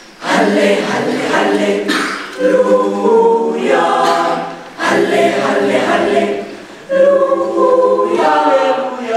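Mixed school choir of boys and girls singing unaccompanied in several voices. The choir comes in just after the start and sings in phrases, with short breaths between them.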